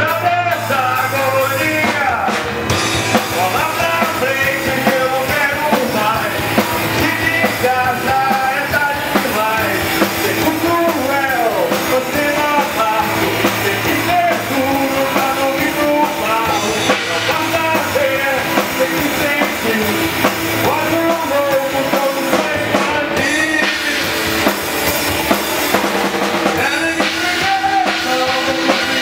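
Rock band playing live: a male singer over electric guitars and a drum kit, with no break in the song.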